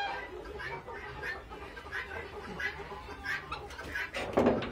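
Chickens in a coop giving short, scattered soft clucks. A brief louder scrape or rattle comes near the end.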